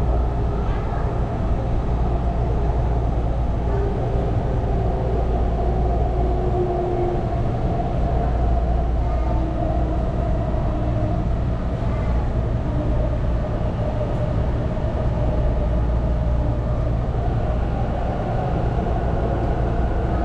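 Taichung MRT Green Line metro car heard from inside while running on an elevated track: a steady low rumble from the wheels and running gear, with faint motor tones coming and going.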